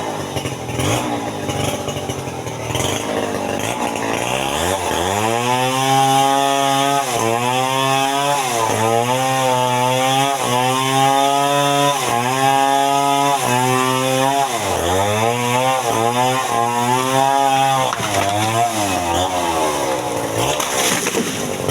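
Two-stroke chainsaw cutting into the trunk of an amplas tree. It runs low at first, rises to full throttle about four seconds in with its pitch dipping briefly every second or two under the load of the cut, then drops back and wavers near the end.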